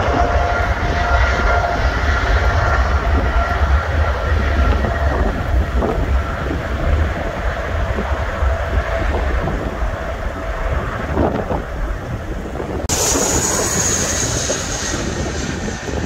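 Jet aircraft engines running across an airfield: a steady whine over heavy wind rumble on the microphone. About 13 seconds in, the sound changes abruptly to a brighter, higher-pitched jet whine as an airliner comes in to land.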